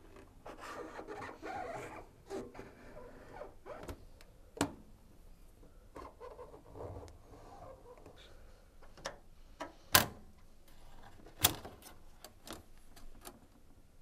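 Flathead screwdriver scraping and rubbing along the metal clamp band and rubber door seal of a front-loading washing machine as the band is worked free, with three sharp clicks of metal through the middle and later part.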